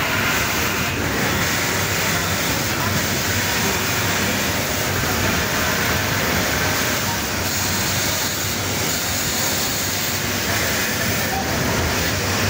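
Steady machine noise of a garment factory floor, with industrial sewing machines such as overlockers running without a break.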